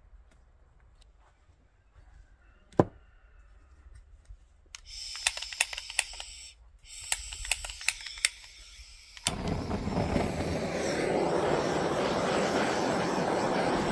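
Handheld gas torch: a single sharp knock, then a run of sharp clicks over a high hiss, and about nine seconds in the flame catches and burns with a loud, steady roar.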